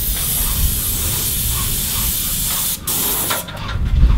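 Paint spray gun on an extension pole hissing steadily as it sprays paint onto a metal rain gutter. The spray breaks off briefly just under three seconds in, resumes, then stops about half a second later. A few knocks and a low rumble follow near the end.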